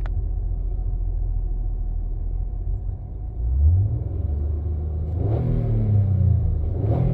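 2005 Acura TL's 3.2-litre V6 heard from inside the car while driving, rising in pitch as the throttle is opened about three and a half seconds in, then the revs rise and fall again twice. The engine is running with a substantial misfire and knocks under load, with the computer pulling timing.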